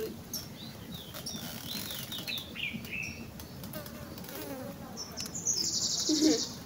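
Small birds chirping with short high calls that rise and fall, then a fast, high, evenly pulsed trill lasting about a second and a half, beginning about five seconds in.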